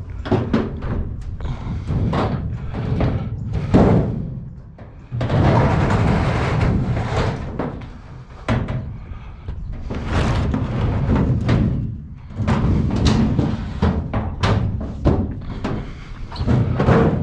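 A heavy metal scrap item being dragged and manhandled: irregular loud thuds and bangs, with longer stretches of scraping noise.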